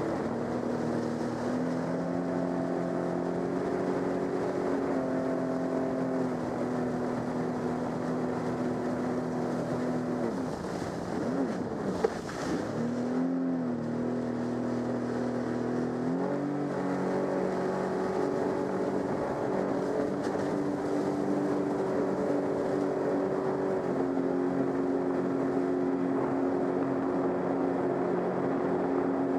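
Sea-Doo GTX 155 jet ski running at speed, its engine note holding steady. It eases off about ten seconds in, with a sharp click near twelve seconds, and climbs back up to speed a few seconds later, with water rushing from the wake.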